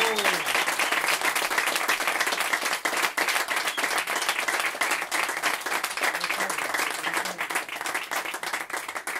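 Audience applauding, a dense patter of many hands clapping that thins a little near the end.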